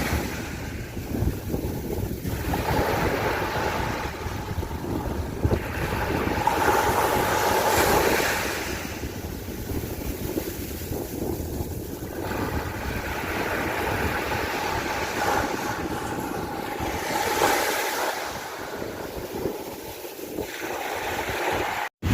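Waves washing onto a beach, surging and fading every few seconds, with wind buffeting the microphone.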